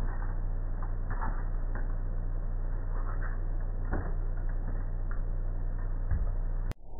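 Steady low electrical hum and hiss from a surveillance camera's microphone, with scattered light clicks and rustles. A sharp click and a brief dropout near the end, where the recording is spliced.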